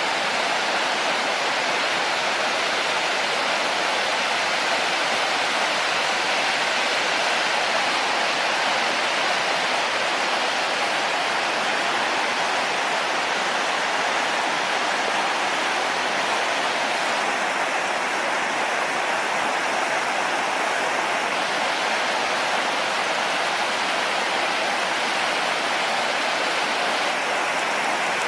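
Steady rush of a river waterfall, water pouring over rocks.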